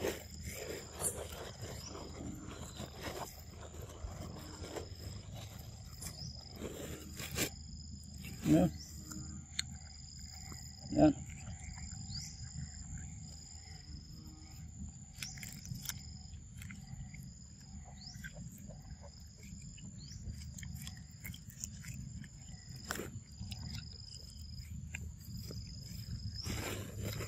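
Two short, loud macaque calls, the first about eight seconds in and the second a few seconds later, over a steady high insect chirring that pulses about once a second. There are scattered small clicks throughout.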